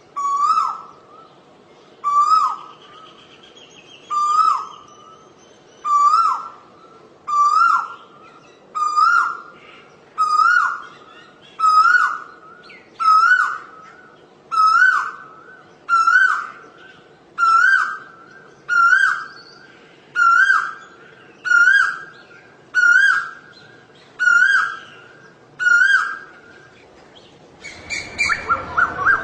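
Asian koel calling its repeated two-note 'ko-el' whistle, about one call every second and a half, each a little higher than the last. Near the end a quicker, busier run of notes begins.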